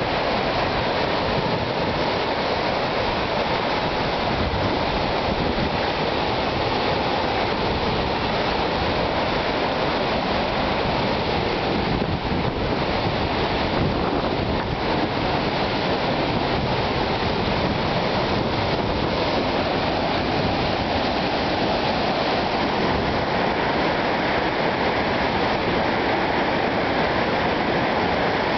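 A waterfall on a river in flood pouring and rushing steadily, with a loud, even roar of water that does not let up.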